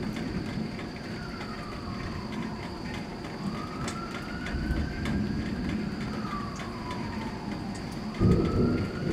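A siren wailing, its pitch slowly rising and falling and then rising again, over a steady low rumble of the storm. A sudden loud clap of thunder breaks in near the end.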